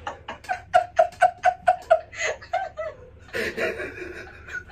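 A man laughing hard in a rapid run of ha-ha-ha pulses, about four a second, which then trails off into breathier laughter near the end.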